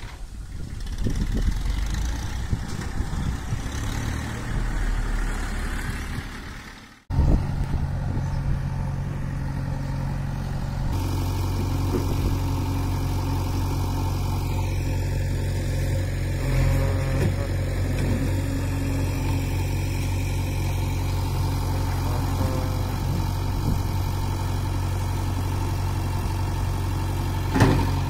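A tractor working the site, heard unevenly for about seven seconds; then, after an abrupt cut, a JCB backhoe loader's diesel engine runs steadily with a low, even hum.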